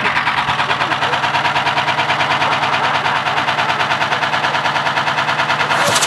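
Front-loading washing machine running flat out while being wrecked: a loud, fast, even rattle of knocks over a steady motor hum. It is smoking and throwing sparks from its base.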